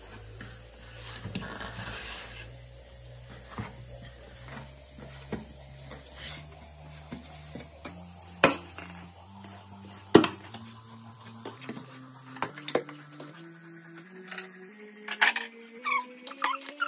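Hands mashing and mixing food in a large basin: soft squishing with scattered small clicks and knocks against the bowl, two of them sharp and loud about halfway through. Under it runs a faint low tone that climbs slowly in small steps.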